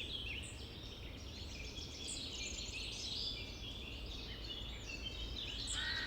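A chorus of many wild birds chirping and calling at once: dense, overlapping short high calls, over a low steady rumble.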